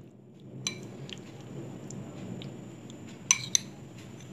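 Metal spoon mixing a bean chaat in a ceramic bowl: a steady low stirring noise, with a sharp clink of spoon on dish about a second in and two more close together near the end.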